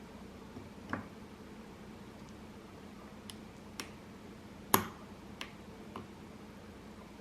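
A few sharp, scattered metallic clicks from a lock pick and tension wrench working the pins of a padlock, the loudest a little under five seconds in.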